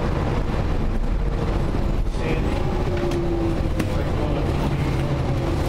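PHX Sky Train people mover running along its elevated guideway, heard from inside the car: a steady rumble with a faint motor whine that drifts slightly in pitch, and a few light clicks.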